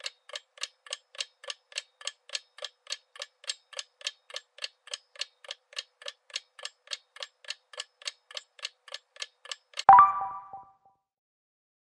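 Countdown-timer ticking sound effect, even ticks about four a second, then a louder, short ringing chime that fades out within a second as the answer is revealed.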